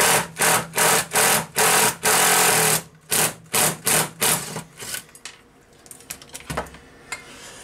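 Impact driver hammering at a rust-seized screw in short trigger bursts, about two or three a second, with one longer burst about two seconds in, using sudden shock to break the screw loose. It stops about five seconds in, followed by a few light clicks from handling the metal part and one dull knock.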